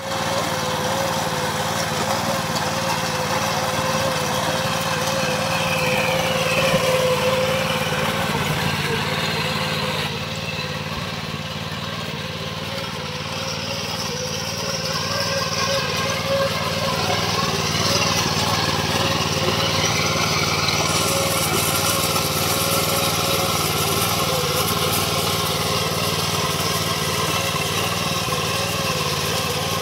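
The small engine of an MTD 750 power weeder (rotary tiller) running steadily under load while its tines dig through the soil. It dips a little quieter for a few seconds around the middle.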